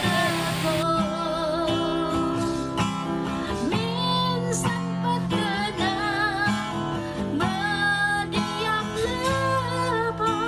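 Background song: strummed acoustic guitar with a sung vocal.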